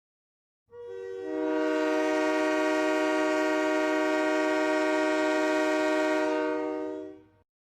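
Ice hockey arena goal horn blowing one long blast: a chord of several steady, held tones like a train horn. It starts about a second in, swells as more tones join, holds steady and fades out near the end.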